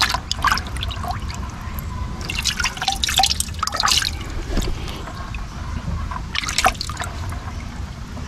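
Water splashing and dripping in a plastic bucket as a hand dips in among small fish and lifts out, in several short bursts of little splashes.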